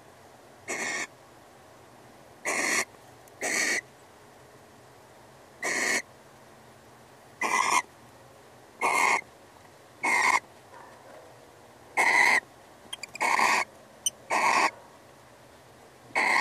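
Barn owl giving short hissing calls, each about a third of a second long and spaced about one to two seconds apart, eleven in all.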